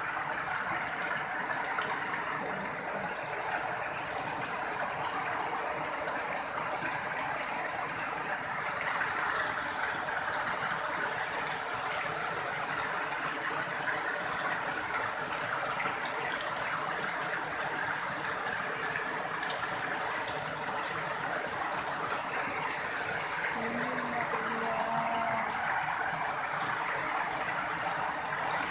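Fast, muddy floodwater rushing along a narrow open channel beside a concrete-block wall: a steady, unbroken gushing.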